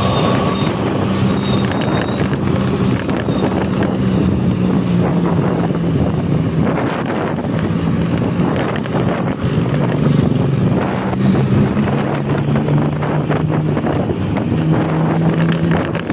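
Intercity bus's diesel engine running hard through a growling 'ngorok' exhaust, its drone stepping up and down in pitch several times as the bus is driven fast.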